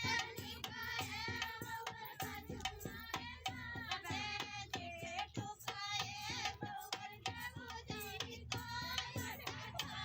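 Music: a high voice singing over a fast, steady percussion beat.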